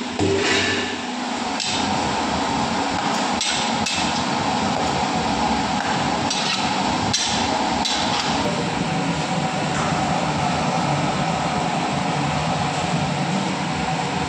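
A steel ladle knocking and scraping against an iron kadhai as a watery potato-spinach curry is stirred, with a handful of sharp clanks in the first eight seconds. Under it runs a steady hiss from the gas burner and the simmering liquid.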